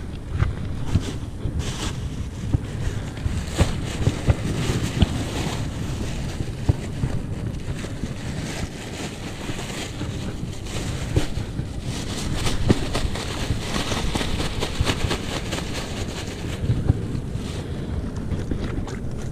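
Wind buffeting the camera microphone in a steady low rumble, over gentle sea wash on the rocks, with scattered clicks and rustles of a plastic bag and mesh net being handled close by.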